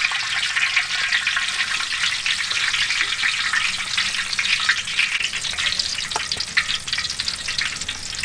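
Deep oil in a large wok sizzling and crackling steadily as dough balls are lowered in on a wire skimmer and fry.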